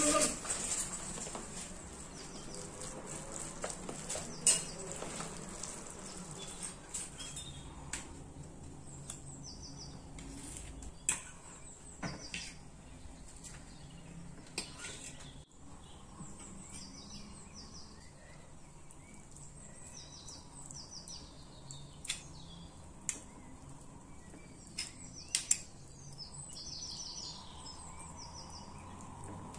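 Metal spoons clinking and scraping against a plastic mixing bowl and then a metal baking tray as a soft filling is stirred and spooned out, with short sharp clicks scattered throughout. Small birds chirp faintly in the background.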